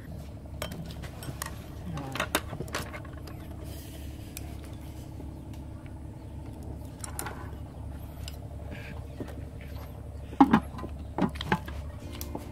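A few sharp clinks of a metal spoon and dishes against the rice pot and bowls, over a steady low hum in the background.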